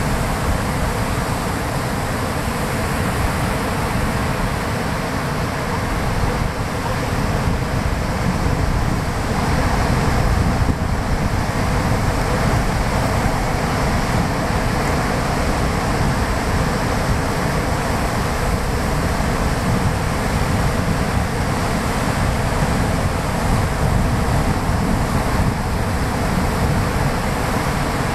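Steady roar of surf breaking along a sandy beach, with wind rumbling on the microphone.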